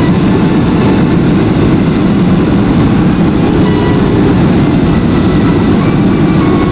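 Boeing 737-400's CFM56 engines and rushing air heard inside the cabin on final approach: a loud, steady low rumble.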